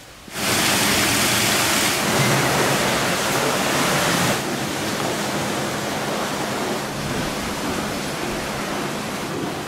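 Steady rushing noise of running water, starting abruptly and loudest for the first four seconds, then a little softer.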